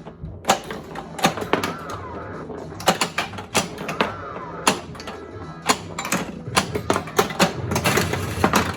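Williams Big Guns pinball machine in play: rapid irregular clacks and knocks of the flippers, ball and solenoids, with the game's electronic sound effects, including a warbling tone twice.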